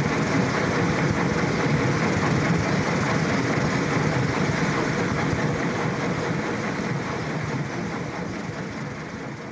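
A steady clattering mechanical noise that fades out over the last few seconds.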